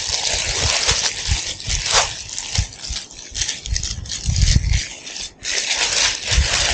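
Thin plastic packaging bag crinkling and rustling loudly as it is pulled open and a windbreaker jacket is drawn out of it, with irregular dull knocks from handling on the table.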